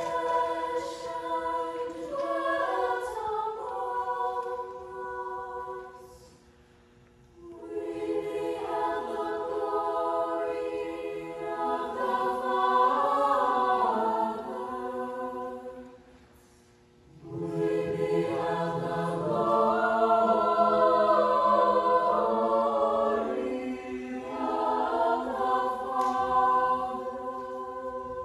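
Mixed teenage choir singing a cappella in sustained chords, in three phrases broken by two short pauses, about six and sixteen seconds in.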